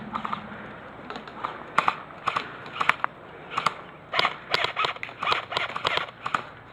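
Airsoft rifles firing single shots as sharp, snapping cracks at an uneven pace. The shots are a second or so apart at first and come faster in the second half.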